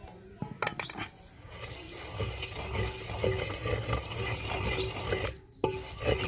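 Wooden pestle grinding and scraping a wet herb paste in a terracotta mortar, a continuous wet, rough rubbing with a steady rhythm of strokes. A few sharp knocks come about half a second in, and the sound breaks off briefly near the end.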